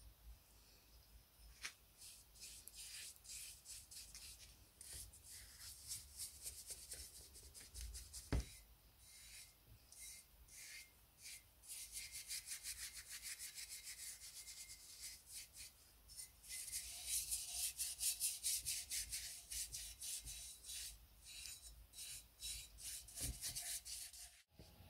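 Wet bristle brush scrubbing tannin rust remover onto a cast iron mortar: faint, quick scratchy strokes, several a second, in runs. A single sharp knock about eight seconds in.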